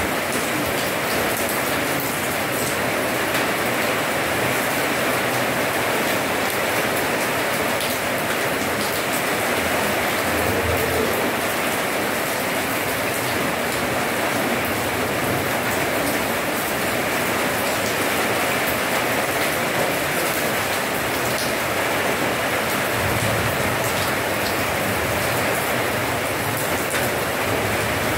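Steady rain falling on wet paving: an even hiss, with scattered ticks of single drops.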